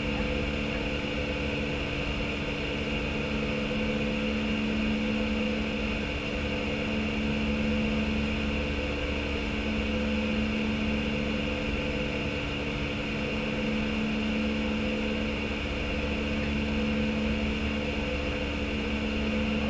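Steady flight-deck noise of an Airbus A319 in flight: a constant rush of air with a machinery drone holding several unchanging hums.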